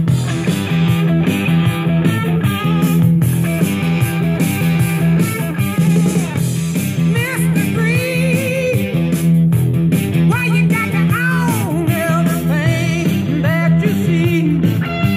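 Rock music with guitar and singing, played back from a prerecorded cassette on a Nakamichi CR-1A two-head cassette deck.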